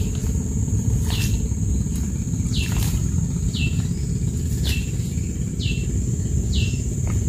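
A bird calling over and over, a short high falling note about once a second, over a steady high-pitched drone and a constant low rumble.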